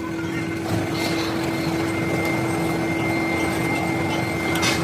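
Workshop machine running steadily: a constant hum with a faint high whine over a noisy rumble.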